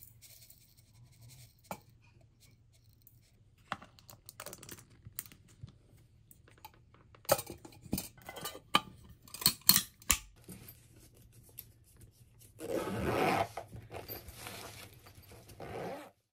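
Handling sounds: scattered clicks and taps of things being picked up and set down, a quick run of louder knocks in the middle, then a few seconds of rustling and scraping near the end.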